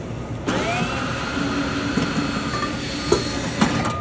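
Cordless drill driver spinning up and running steadily for about three seconds, backing out a screw from the sheet-metal top plate, then stopping. There are two sharp clicks near the end.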